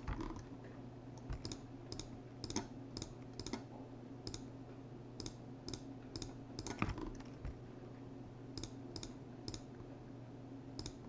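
Irregular clicking of a computer keyboard and mouse: scattered single keystrokes and clicks, a few in quick pairs, one louder click about seven seconds in. A faint steady low hum runs underneath.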